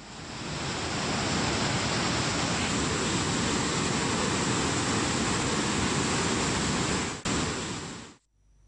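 Steady rushing of floodwater: an even, dense noise that fades in over the first second, breaks off briefly near seven seconds and stops abruptly just before the end.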